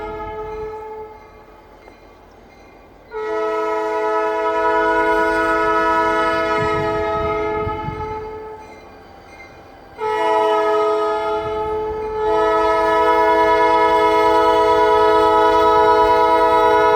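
Escanaba & Lake Superior SD40-2 diesel locomotive's multi-note air horn sounding the grade-crossing signal: the end of one blast, then long, short, long. A low locomotive rumble grows under the last blast as the train draws near.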